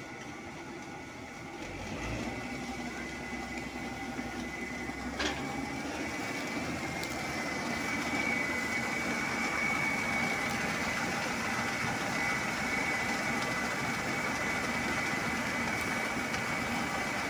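Karma 930 combine harvester running steadily while its unloading auger pours grain into a trailer, with a steady high whine over the engine. The sound grows louder over the first several seconds, and there is a single sharp click about five seconds in.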